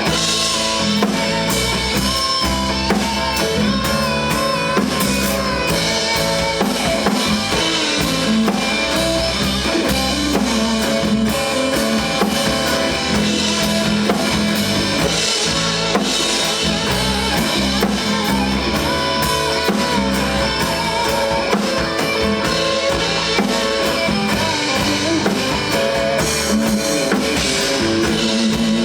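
Band playing an instrumental passage of a rock song, with drum kit and guitar over a steady beat.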